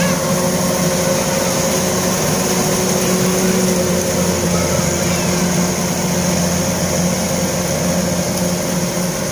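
Kubota rice combine harvester's diesel engine running steadily under load as the machine cuts standing rice, an even drone with a steady hum.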